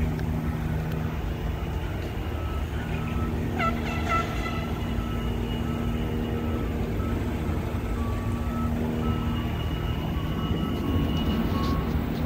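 Heavy construction machinery running: a steady low engine drone over a low rumble, with a brief cluster of high squeals about three and a half seconds in. The drone fades out about nine and a half seconds in.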